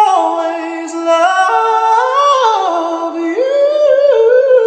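A man singing a cappella, holding long notes that step up and down in pitch.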